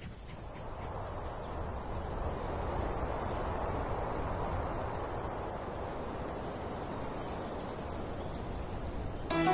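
Crickets chirring, a high-pitched, continuous trill pulsing in even beats, over a soft rushing noise that swells and eases off.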